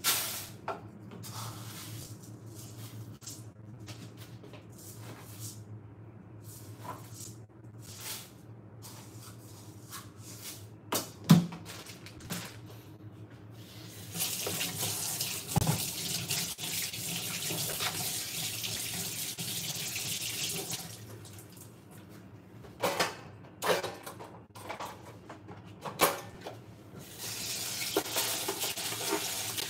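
Water running from a kitchen tap into a sink in two spells, one about halfway through lasting several seconds and another starting near the end. Between them come a few sharp knocks, over a low steady hum.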